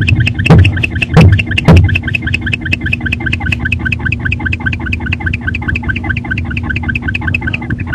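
Male barn owl in a nest box giving rapid, evenly spaced clicking calls, about eight a second, to call the female in. Three heavy thumps in the first two seconds are his foot stomping on the box floor.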